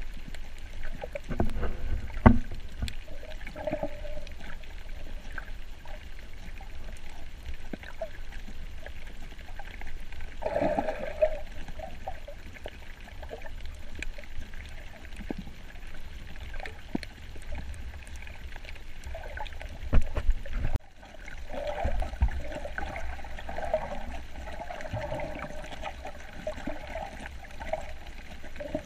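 Muffled underwater water noise around a camera filming while snorkeling: a steady low rumble and hiss with small clicks and patches of gurgling bubbles. The sound drops out for a moment about two-thirds of the way through.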